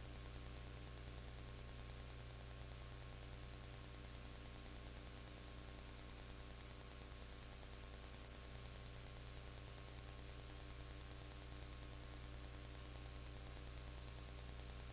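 Steady hiss with a low electrical hum and no game sound heard: the bare noise floor of an old home videotape transfer.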